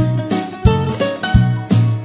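Background music with a steady beat and a tune of short plucked notes.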